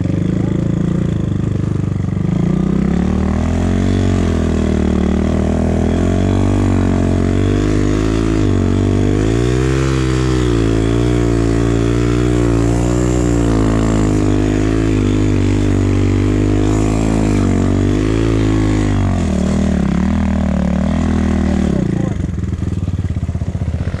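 Enduro motorcycle engine running under throttle while riding through snow, the revs rising and falling again and again. It eases off for a few seconds near the end.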